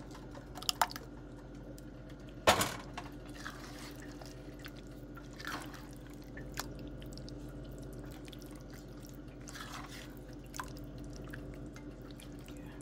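A slotted spatula stirring a thick meat-and-pepper tomato sauce in an enamelled pot: wet, sloppy stirring sounds with occasional knocks and scrapes of the spatula against the pot, the loudest about two and a half seconds in. A steady low hum runs underneath.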